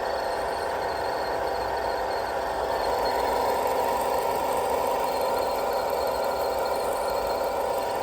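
Vauxhall Astra 1.4 engine running with a steady mechanical drone and whine from the engine bay, a little louder from about three seconds in. The noise comes from a failing alternator that needs replacing.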